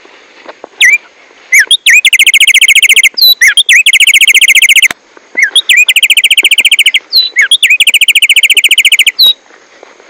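A caged black-striped sparrow (tumba yegua or tico tico) singing loudly and close up. Each phrase opens with a few sliding whistled notes and runs into a long, very fast, even trill. There are four such phrases, two of them beginning about a second and a half in and two about five and a half seconds in, with a short sliding note to close at about nine seconds.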